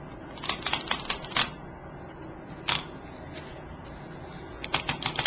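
Xyron tape glue runner ticking as it is pressed and drawn across paper: a quick run of clicks about half a second in, a single click near the middle, and another quick run near the end.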